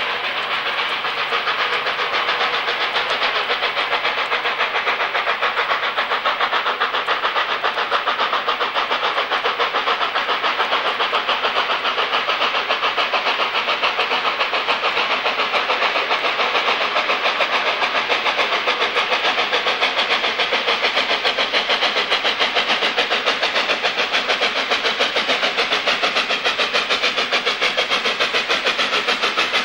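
LNER A4 Pacific steam locomotive No. 60009 working a train, its three-cylinder exhaust making a rapid, even beat that goes on unbroken as it draws near.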